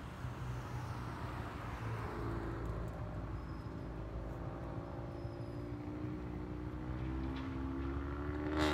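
Steady low noise of city traffic at a signalled intersection. From about two seconds in, one engine note grows steadily louder and slowly higher as a vehicle pulls away. A sharp click comes just before the end.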